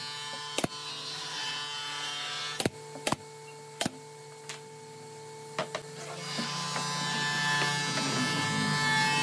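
Pneumatic nail gun firing into the edge of a plywood panel, several sharp single shots spaced a second or so apart, over a steady hum. From about six seconds in a louder rubbing noise builds as wood panels are handled.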